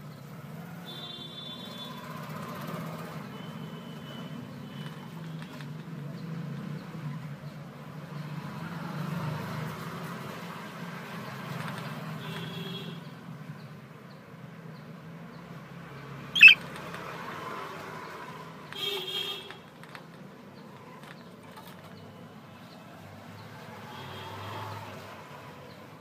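Steady low rumble of distant traffic, with a few short high bird chirps and one sharp, loud call about sixteen seconds in.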